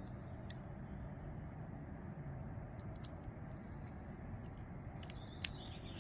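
A few scattered light clicks of a small screwdriver bit and tiny body screws being worked into a folding knife's handle, over a low steady background.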